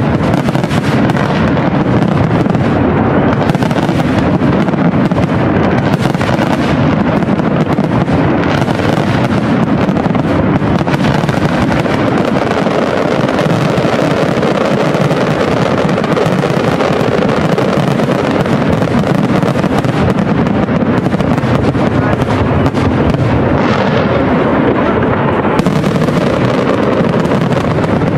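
Aerial firework shells bursting in a dense, unbroken barrage. The bangs run together into one continuous rumble that stays loud and even, with no pauses between them.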